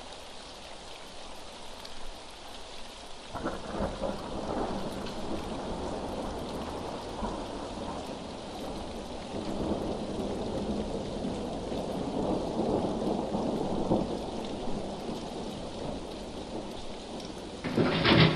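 Steady rain with thunder, growing heavier a few seconds in, with a louder burst near the end.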